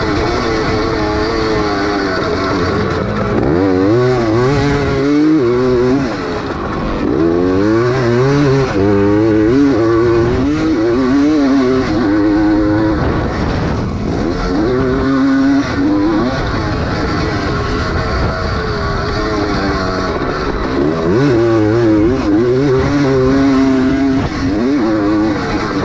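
A 250 cc vintage motocross bike's engine under race load, heard from on board, its pitch rising and falling again and again as the rider opens and closes the throttle and shifts through the track's jumps and turns.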